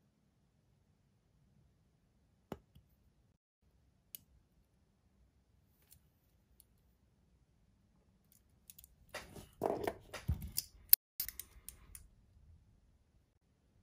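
Steel watch bracelets being handled: two faint clicks, then about three seconds of metal links clinking and rattling with a few sharp ticks, as one watch is swapped for another.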